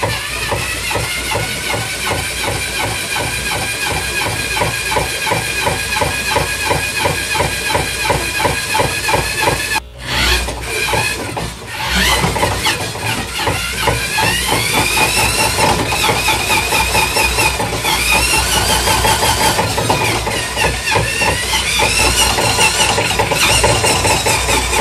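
Electric drill driving a trotline line-puller wheel, its motor whining steadily with a regular ticking as the line runs through. The motor stops briefly about ten seconds in, then starts again and rises in pitch as it speeds up, dipping and rising once more later on: the speed is being set with a variable-speed foot pedal.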